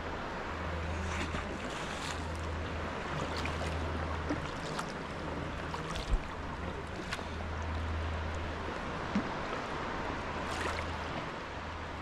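Calm sea water lapping and trickling around a moving sea kayak, with scattered small drips and ticks, over a low rumble that comes and goes.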